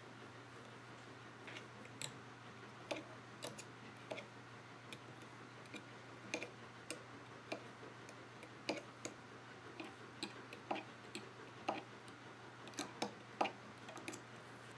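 Faint, irregular clicks, about one or two a second, from a metal-tipped knitting tool and yarn loops tapping the metal pegs of a knitting loom as stitches are knit across a row.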